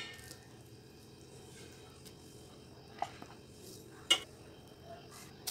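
A steel serving spoon scooping biryani out of an aluminium pot: mostly quiet, with two light clinks of the spoon against the pot about three and four seconds in, the second the louder.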